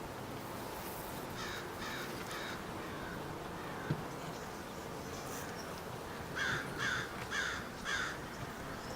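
A bird calling outdoors with short, harsh, repeated calls: three about a second and a half in, then four more in quick succession near the end.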